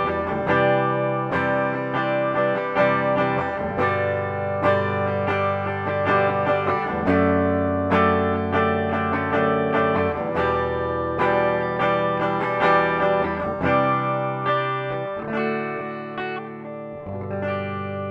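Lavish CMRL-W electric guitar on its bridge Tesla humbucker, played with a clean tone: chords and notes picked and left to ring, changing every second or two, getting quieter in the last few seconds.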